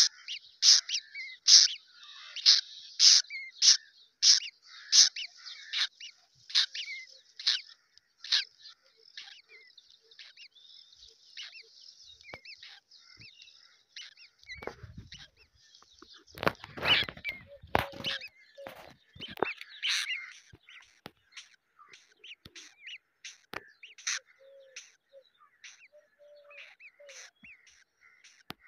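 Crow nestlings begging: a quick run of high, sharp cheeps, about two a second, that grows softer and sparser after about eight seconds. About halfway through comes a few seconds of rustling and low thuds, followed by scattered faint cheeps.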